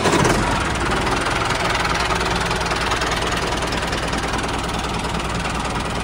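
An engine running steadily: a low, even drone under a hiss, with no change in speed.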